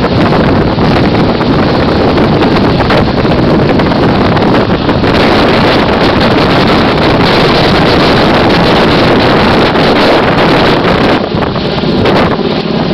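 Helicopter hovering overhead: a loud, steady roar of rotor noise and downwash buffeting the microphone, easing slightly near the end.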